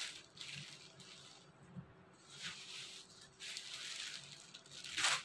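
Several short bursts of rustling from printed lawn fabric being gathered up and handled, the loudest just at the end.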